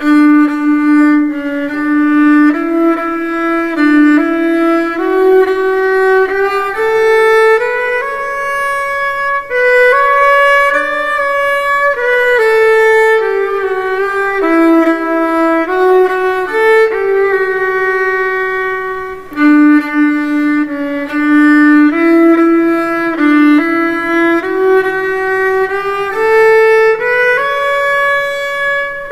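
Solo violin playing a slow melody, one note at a time, with short slides between some notes.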